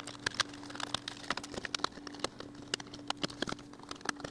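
Irregular small plastic clicks and ticks as a Frigidaire oven controller board's plastic housing is pried open with a small tool and handled, over a faint steady hum.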